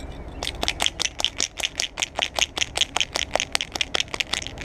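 Glass primer bottle shaken hard so that the mixing ball inside rattles, about five or six sharp clicks a second for roughly four seconds.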